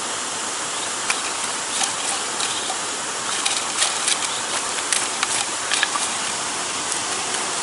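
Steady rush of river water from a nearby waterfall, with scattered small clicks and rustles as fish are picked from a nylon cast net and pushed into a mesh bag.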